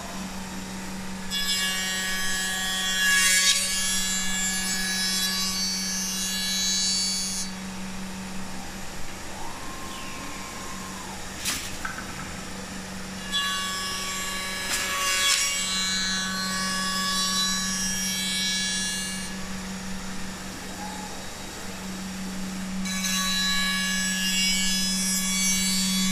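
Bacci Artist 1624 CNC machine cutting tenons in wood: the spindle runs with a steady hum while the cutter bites into the wood in three spells of several seconds each, about one, thirteen and twenty-three seconds in, with one sharp click in between.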